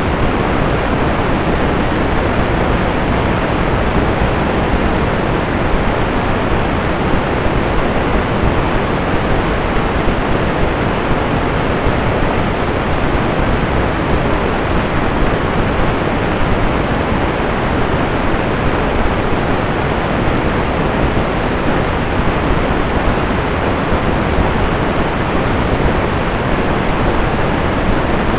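Loud, steady static hiss from an analog FPV video receiver that has lost the drone's signal, with no voice or engine in it.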